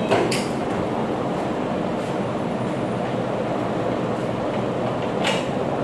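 Steady whirring noise of running machinery, with two light clicks, one just after the start and one near the end.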